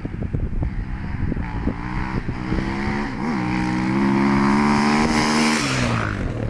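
KTM 530 EXC-R dirt bike's single-cylinder four-stroke engine accelerating hard toward and past, getting louder as it nears. Its pitch climbs steadily, with a brief dip at a gear change about three seconds in.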